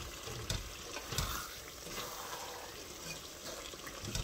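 Wooden spatula stirring and scraping minced meat and spinach in an aluminium pot, with a few knocks against the pot over a faint frying sizzle. The mix is being fried dry to drive off the last of its water.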